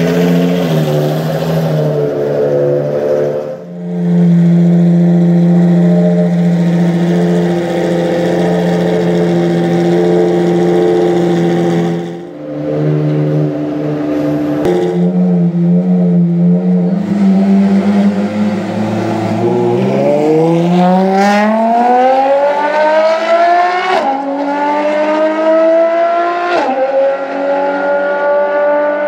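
Ferrari FXX K's 6.3-litre V12 idling steadily, then accelerating away about twenty seconds in, its pitch rising and falling back sharply twice as it shifts up.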